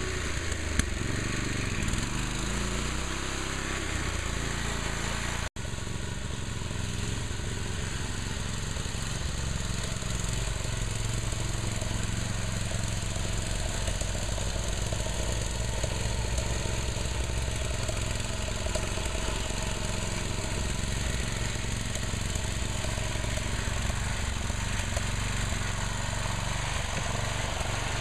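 Engine of a Sears Custom 7 garden tractor converted to an off-road go-kart, running under load as it is driven. The sound cuts out for an instant about five and a half seconds in.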